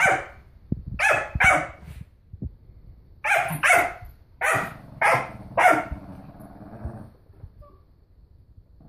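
A dog barking in play during a tug-of-war over a toy: about nine short, sharp barks in quick bunches, stopping about seven seconds in.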